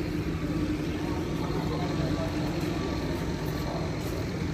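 Electric commuter train giving off a steady low electrical hum, with a few faint steady tones above it.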